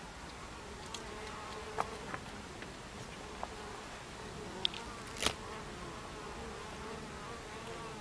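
Buckfast honeybees buzzing at the hive entrance: a steady, slightly wavering hum of many wings. A few short sharp clicks come through it, the loudest about five seconds in.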